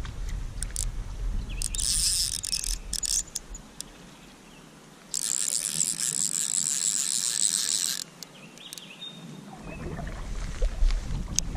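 Fly reel's click-pawl drag buzzing as a hooked brown trout runs and takes line, the sign of a big fish. There is a short run about two seconds in and a longer, louder one of about three seconds from about five seconds in. Wind rumbles on the microphone around them.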